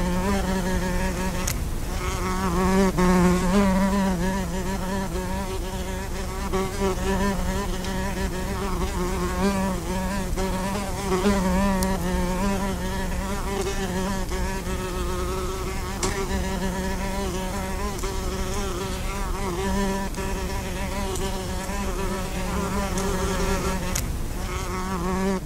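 Many wasps buzzing together inside a plastic-bottle wasp trap, a dense, steady hum that wavers in pitch as the trapped wasps beat their wings.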